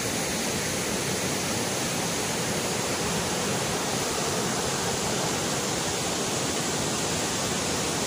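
Steady rush of a waterfall's white water tumbling down over rock slabs, an even, unbroken noise.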